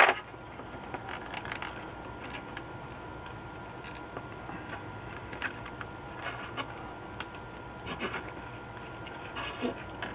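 Small scattered clicks and scratches from handling a circuit board and soldering iron while desoldering an electrolytic capacitor, with a sharp click at the start, over a faint steady background tone.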